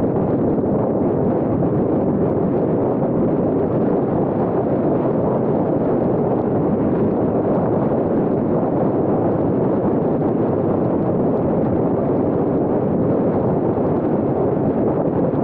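Steady rushing wind and road noise from a vehicle driving at motorway speed, with wind blowing across the microphone.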